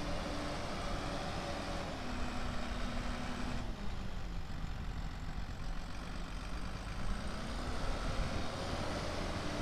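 Case IH MXM175 tractor's six-cylinder diesel engine running. The revs drop about two seconds in and further a little later, then climb back up near the end.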